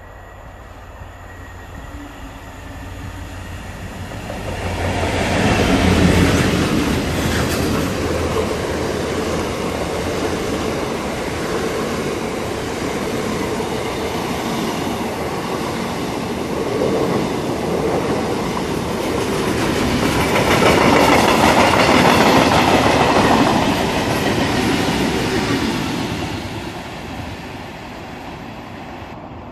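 Class 66 diesel locomotive passing at speed, loudest about six seconds in, followed by the wheels of the hauled Class 332 electric units rumbling and clattering over the rails, swelling again around twenty seconds and then fading away.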